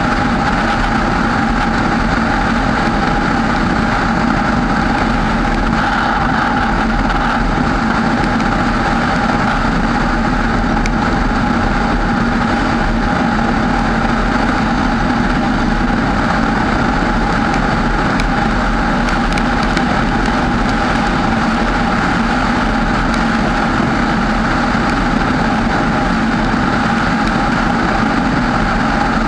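Steady drone of a car driving at constant speed on a wet road: engine and tyre noise with a few unchanging tones and no change in level.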